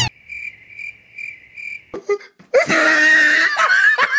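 Cricket chirping sound effect, four short, evenly spaced chirps over near silence: the comic awkward-silence gag. About two and a half seconds in, a loud laugh breaks in, with falling 'ha' sounds repeating about twice a second.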